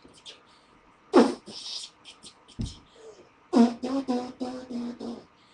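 Vocal beatboxing: hissing hi-hat and click sounds, a kick-drum sound about a second in, then a quick run of about six hummed beats near the end.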